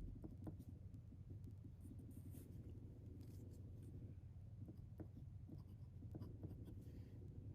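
Faint scratching on paper as fountain pen ink is swatched, with a few light ticks, over a low steady hum.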